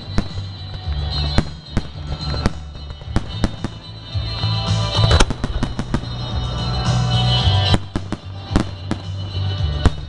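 Aerial firework shells bursting in a rapid, irregular string of sharp bangs, with music playing underneath.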